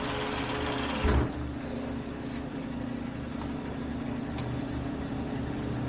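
Metal lathe running as it turns a Dana 60 axle shaft on a truing cut: a steady hum with a hiss over it, then a single clunk about a second in, after which the hiss drops away and the lathe keeps humming with a few faint ticks.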